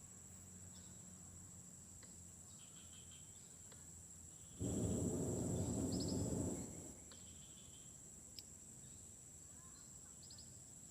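Steady insect drone with groups of short, high chirps repeating every few seconds: a strange animal call that the fishermen guess is a squirrel. In the middle comes a rush of noise about two seconds long, the loudest thing here.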